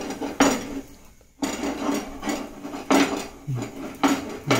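Kitchen clatter: several sharp knocks and clanks of a flat frying pan and utensils against a gas stove.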